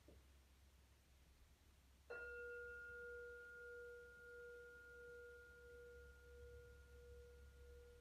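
Singing bowl struck once about two seconds in, then ringing on in a steady low tone with a higher overtone above it, wavering slightly as it sustains.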